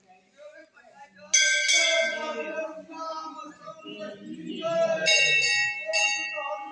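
Brass temple bell struck about three times: once about a second in, then twice close together near the end, each strike ringing on and fading. Voices murmur underneath.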